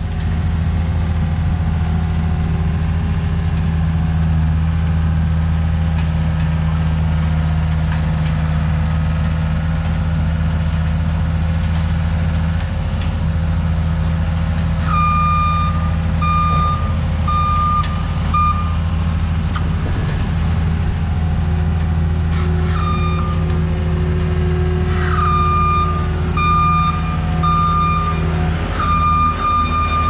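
Steady low drone of farm machinery running, a John Deere 320E skid steer's diesel engine among it. From about halfway through, a back-up alarm beeps in even repeats, stops briefly, then resumes.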